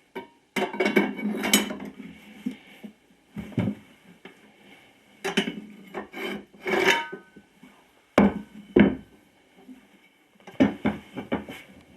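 Manual tire changer being worked against a garden tractor tire to break the bead: irregular scrapes, rubs and metal knocks as the tool levers and the rubber shifts on the rim, with a few sharp knocks in the second half.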